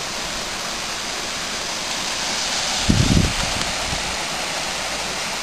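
Fast mountain stream rushing over boulders, a steady hiss of water. A brief low thump about three seconds in.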